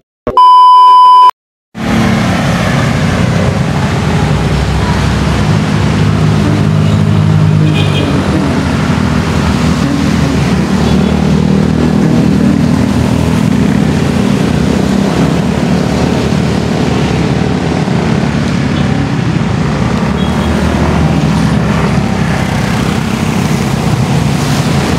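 A TV colour-bars test-pattern tone: a loud, steady beep lasting about a second, cut off by a brief silence. Then a loud, steady outdoor rumble like traffic noise runs on without a break.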